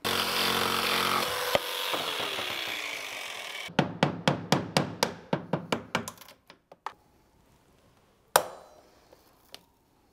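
Power drill running as it bores into the wooden handle's mount, for about three and a half seconds. It is followed by a quick run of about a dozen sharp knocks that fade away, and one more sharp knock near the end.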